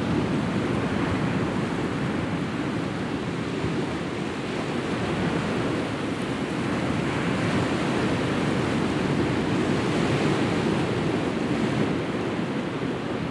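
Sea waves breaking and washing over a rocky shore: a steady rush of surf that swells gently now and then.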